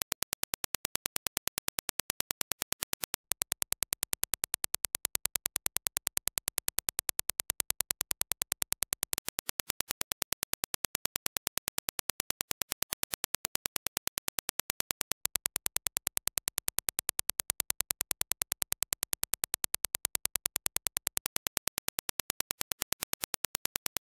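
A rapid, even train of identical sharp clicks, several a second: a Dirac impulse test signal played over and over. Its loudness steps a little up and down about every six seconds.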